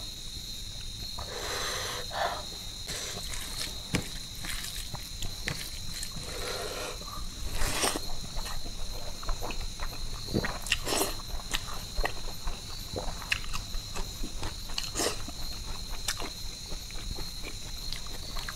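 Close-up eating sounds: chewing and lip-smacking, with scattered wet clicks and squelches as fingers mix and scoop rice and curry. A steady high-pitched whine runs underneath.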